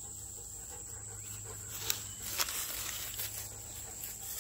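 Steady high-pitched chirring of insects in the grass, with a few short clicks and rustles about two seconds in.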